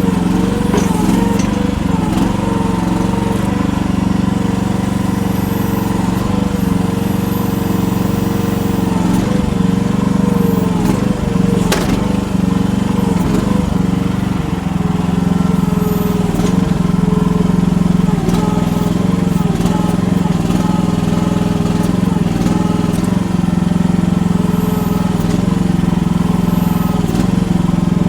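Chinese mini excavator's small engine running steadily under load as the machine labours to climb a soft bank, its note repeatedly dipping and recovering. A single sharp clank about twelve seconds in.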